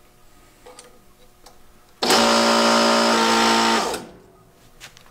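Sunnen BP-10 shop press's power pump running for about two seconds: it starts abruptly about two seconds in and stops just before four seconds, a steady motor hum over a loud hiss. A few faint clicks of steel parts being handled come before and after it.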